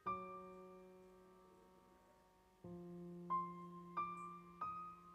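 Background piano music: a chord struck at the start and left to fade, then about two and a half seconds in another chord followed by three single higher notes in quick succession.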